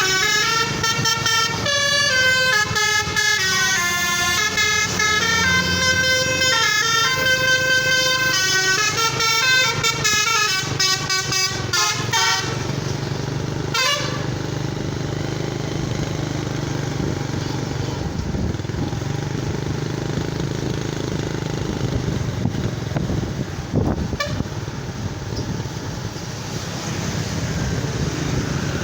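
A telolet musical horn plays a tune of quick stepping notes for about twelve seconds, then stops. After that a heavy vehicle's engine runs steadily under road noise.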